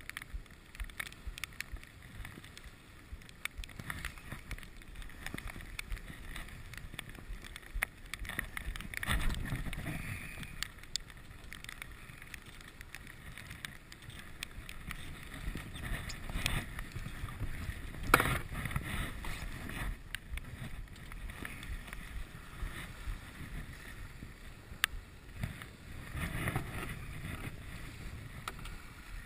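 Small sailboat heeling under sail: water rushing and slapping along the hull, with wind buffeting the microphone. The water swells louder a few times: about a third of the way in, just past halfway, and near the end.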